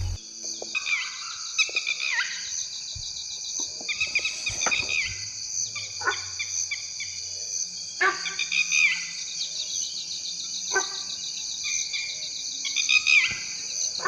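Insect chorus, a steady high-pitched cricket-like buzz, with short falling chirping calls repeating every second or two and a few faint low knocks.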